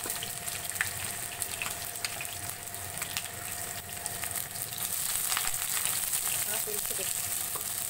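Sliced onions sizzling and crackling in hot oil in a non-stick wok, stirred with a spatula over the last few seconds.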